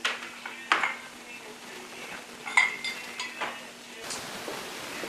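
Metal automatic-transmission parts clinking and knocking against each other as they are handled: four sharp clinks, about a second apart at first, the third one ringing briefly.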